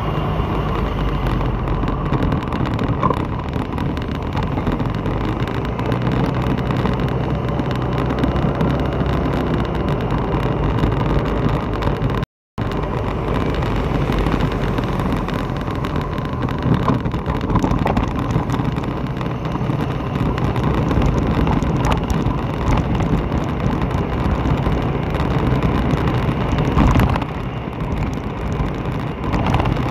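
Steady riding noise from a moving vehicle on wet streets: a low engine and road drone with wind on the microphone. The sound cuts out completely for a moment near the middle.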